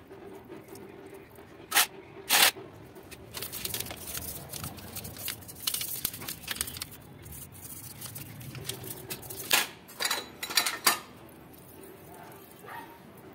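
Old toothbrush scrubbing petrol over the TVS Ntorq scooter's clutch and variator parts, a scratchy wet brushing, with short loud spurts of noise twice about two seconds in and a quick run of them around ten seconds.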